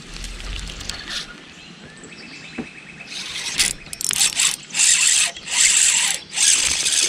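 Fishing reel ratcheting with a short run of fast, even clicks, followed by a series of louder rushing noises in bursts with short gaps.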